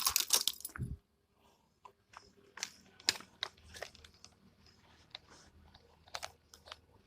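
Irregular crackling and clicking, louder in the first second, then sparse faint clicks.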